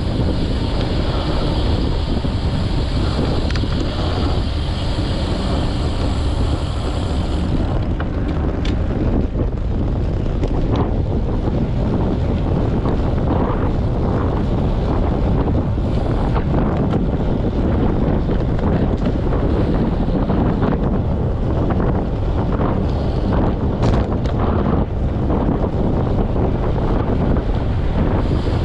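Wind buffeting the microphone of a handlebar-mounted camera on a moving road bike, a steady loud rumbling rush mixed with tyre and road noise. A higher hiss rides on top for about the first seven seconds and then stops, and a few faint clicks come through later.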